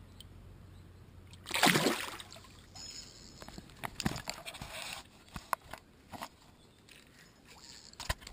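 River water heard on an underwater camera: a loud splash about a second and a half in, then sloshing and dripping with scattered sharp clicks as the camera comes up out of the water.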